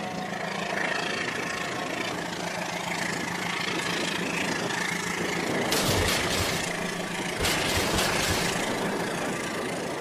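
Battery-powered toy train running on plastic track, its small motor and gears making a steady whir. A burst of clattering knocks comes about halfway through and another a little later, as the cars derail and tumble off the track.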